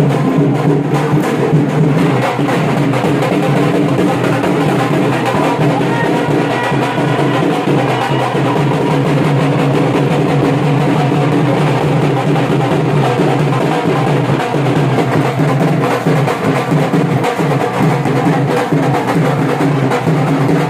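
Loud dance music driven by heavy drumming, with a steady beat.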